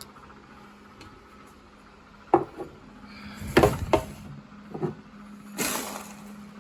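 Bird feeder being handled and emptied: a few sharp knocks, a quick cluster of them about halfway through, then a short scraping rush.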